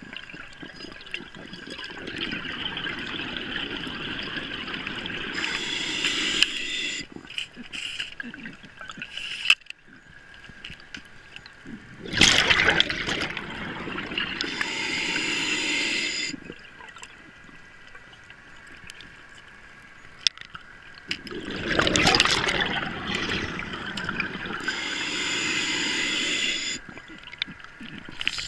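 Scuba diver's regulator breathing underwater: three long surges of bubbling, gurgling exhaled air, about nine seconds apart, with quieter stretches between.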